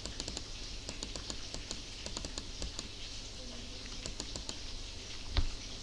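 Computer keyboard keys tapped in quick irregular runs of light clicks while a value is typed in, then one louder single click about five and a half seconds in.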